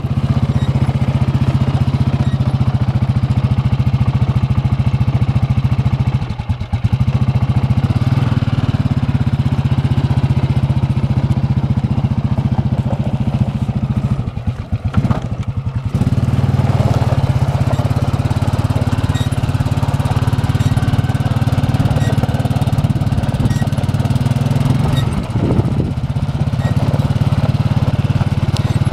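2001 Bombardier ATV engine running steadily as the quad is ridden at low speed, dipping briefly about six seconds in and again around fifteen seconds in, with a short rise in pitch near the end.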